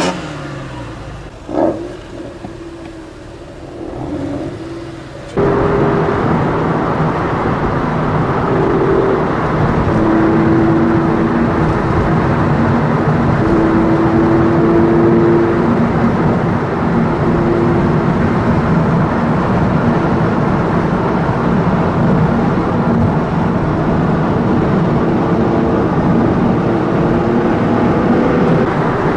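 Porsche 911 driving, heard from inside the cabin. It opens quieter with brief revs rising and falling in pitch; about five seconds in it jumps to loud, steady engine and road noise, the engine note holding and stepping between pitches.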